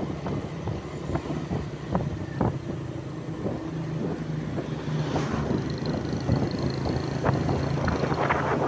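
A motor running steadily with a low hum, with wind buffeting the microphone and scattered knocks.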